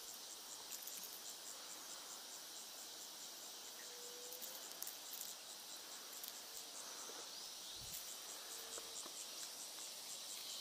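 Insects chirring steadily, a high-pitched, evenly pulsing drone.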